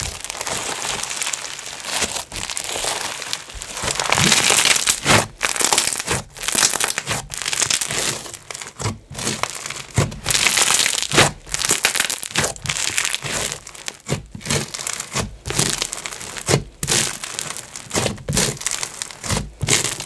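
Bingsu bead slime being squeezed and worked by hand: the plastic beads crunch and crackle in irregular spells broken by brief pauses.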